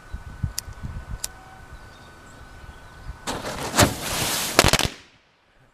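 Homemade firecracker made from a firework's contents going off about three seconds in: a crackling burst with several sharp cracks, lasting about a second and a half and cutting off abruptly.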